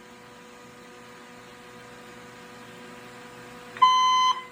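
Fire alarm speaker with a faint steady hum from the amplified system, then near the end one loud, steady, high-pitched alert beep of about half a second, the first of a series of evenly spaced beeps of the alarm tone.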